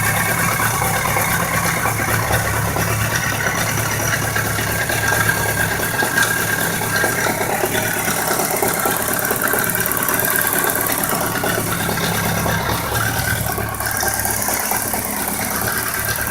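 1999 BMW K 1200 RS motorcycle's inline four-cylinder engine running steadily at idle, with a rapid rattling tick and knock through it, the noise the owner is trying to track down.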